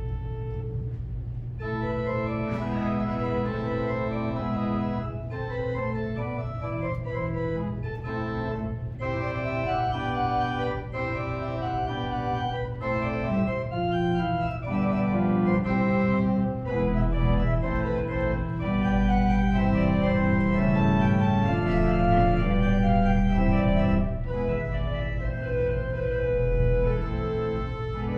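Organ music played slowly in sustained chords over a held low bass note, fuller from about two seconds in.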